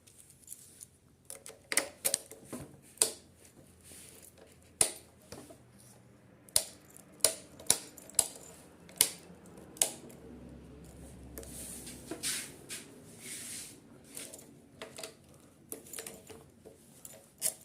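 Sharp, irregular metallic clicks and light rattling from a newly fitted Hero Passion Pro ignition lock and key being worked and tried, about a dozen clicks in all.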